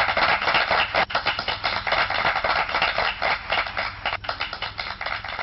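Applause: many hands clapping in a dense, crackling patter.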